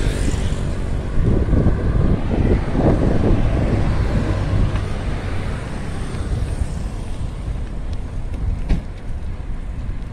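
Road traffic on a city avenue: a steady low rumble of car engines and tyres, swelling as vehicles pass in the first few seconds and easing after. A single sharp click about nine seconds in.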